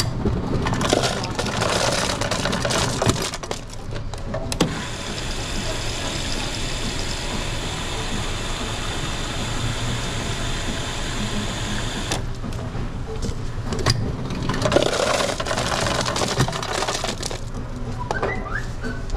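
Self-serve soda fountain dispensing dark soda into paper cups: a steady fizzing pour lasting several seconds, then a rougher, uneven stretch of dispensing noise as the second cup fills.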